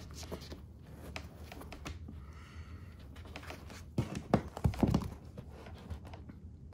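Quiet rustling and handling of a fabric seat cover over foam as hog ring pliers are worked to crimp a hog ring through it, with scattered clicks and a few sharper knocks about four to five seconds in.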